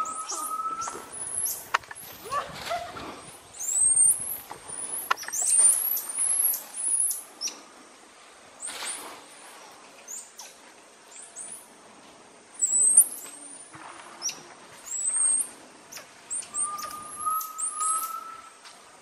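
A troop of Bolivian squirrel monkeys giving many short, very high-pitched chirps and peeps while leaves and branches rustle as they leap through the canopy. A lower, drawn-out whistle is heard near the start and again near the end.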